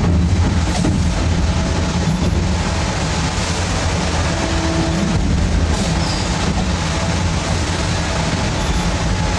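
Double-blade sawmill machinery running steadily with a loud low drone.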